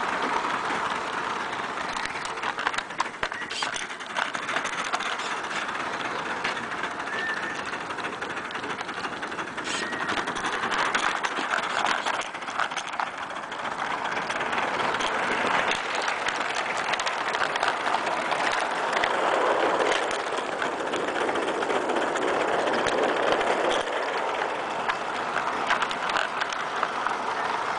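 16mm-scale live-steam De Winton vertical-boiler quarry locomotive running on a garden railway: a steady steam hiss with scattered clicks and rattles from the running gear and track, swelling for a few seconds past the middle.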